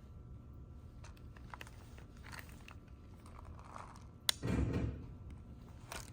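Refrigerated vending machine with a steady hum. About four seconds in there is a sharp click, then a short, loud clunk and rattle, and another click near the end.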